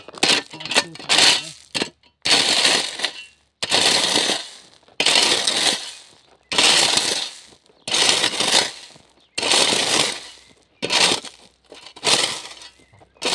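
Steel shovel scooping loose gravel and throwing it, a crunching scrape of stones about every second and a half, around ten times.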